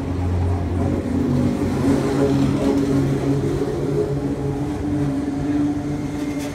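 Heritage Red Set electric suburban train of vintage red 'Red Rattler' cars rolling slowly past. It gives a steady low hum of several tones that rise slightly in pitch about two seconds in.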